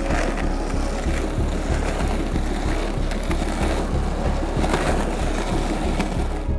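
Skateboard wheels rolling on asphalt, a steady rolling noise, over background music with an evenly repeating low bass pulse.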